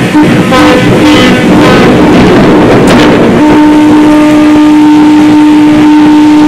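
Ship's horn sounding loudly over a rushing noise: a run of short broken blasts, then from about three and a half seconds in one long steady blast.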